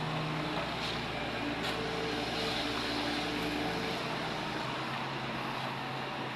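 An engine running steadily, its pitch shifting slightly, with two faint clicks about a second in.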